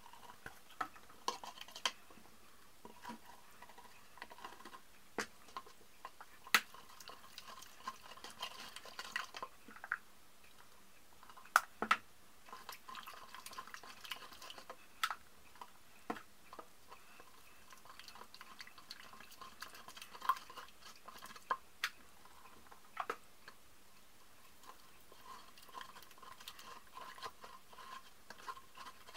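Plastic stirrer scraping and clinking around the inside of a plastic cup while gypsum plaster is mixed with water. The stirring comes in several stretches, with a few sharp knocks against the cup.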